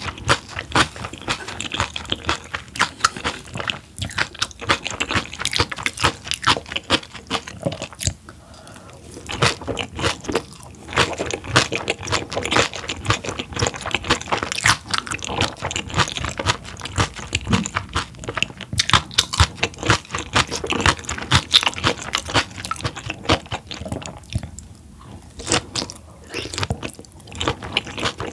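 Close-miked chewing of raw large-eyed herring sashimi: a dense run of wet crunches and mouth clicks, with a couple of short lulls.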